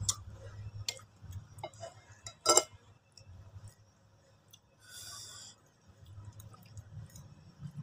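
Metal fork and spoon clinking and scraping against a ceramic plate, a few sharp clinks in the first half with the loudest about two and a half seconds in. These are mixed with close-up eating sounds and a short hiss about five seconds in.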